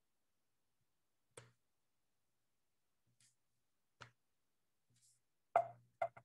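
A few faint, sharp clicks and knocks with long pauses between them, the loudest about five and a half seconds in, followed quickly by two more near the end.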